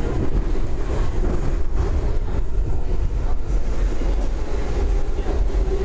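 Washington Metro train running on the track, a steady rumble of wheels on rail.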